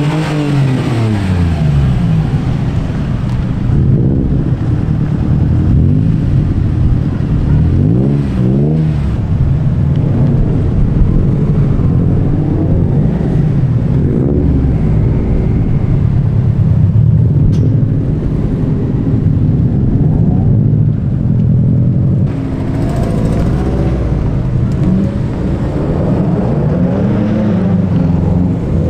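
Japanese performance car engines, among them a Nissan 350Z and a Subaru Impreza, pulling away at low speed one after another, the drivers blipping the revs several times so the engine note rises and falls.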